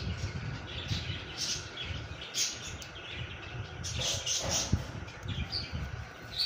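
Small caged birds chirping over and over, over low handling noise, with one soft knock about three-quarters of the way through.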